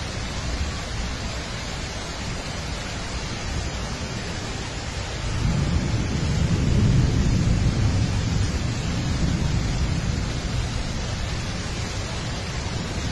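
Heavy rain falling steadily, a dense hiss. About five seconds in, a long low rumble of thunder swells and then slowly fades under it.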